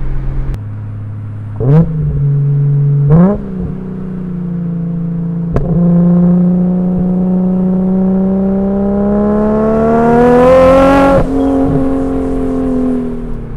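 RB26 twin-turbo straight-six engine of a swapped Nissan 240SX under hard driving: the revs flare sharply twice, then climb steadily for about seven seconds under acceleration and drop suddenly at a gear change near the end.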